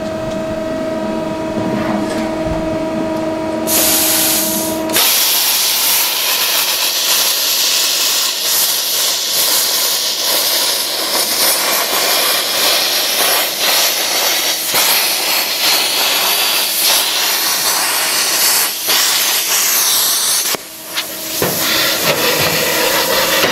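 Plasma cutter cutting through a steel I-beam. After a steady shop hum, air starts to rush about four seconds in. Then a loud, even crackling hiss runs for about fifteen seconds and cuts off suddenly, and a shorter rush of air follows near the end.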